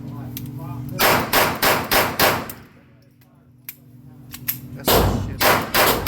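Gunshots: a quick string of five shots about a third of a second apart, then, after a pause of about two and a half seconds, another rapid string begins near the end. A low steady hum sits under the first second.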